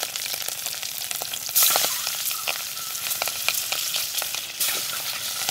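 Peeled boiled eggs frying in hot oil in a metal pan: a steady sizzle with crackling and spitting, surging louder about one and a half seconds in and briefly again near the end as more eggs go into the oil.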